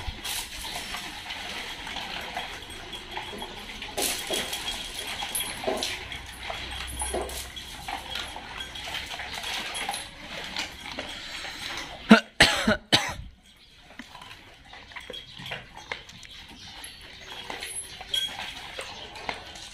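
A pack of dogs eats dry kibble off a tiled floor, making a steady patter of crunches and small clicks. About twelve seconds in, a dog lets out a quick burst of loud barks.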